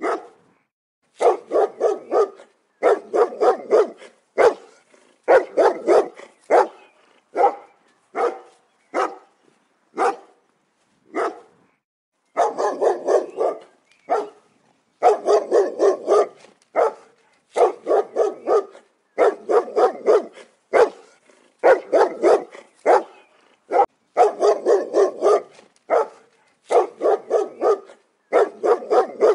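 Dog barking over and over in quick runs of several barks, with short pauses between the runs.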